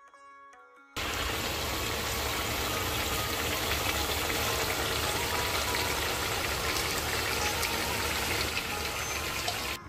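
Mutton pieces frying in ghee and masala in a pan: a steady sizzle that starts about a second in after a near-quiet moment.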